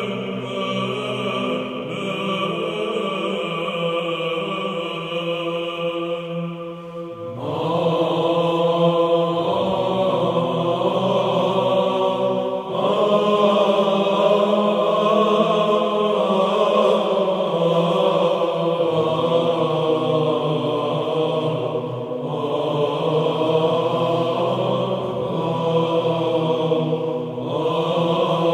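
Background music: slow vocal chanting with long held notes, growing fuller and louder about seven seconds in.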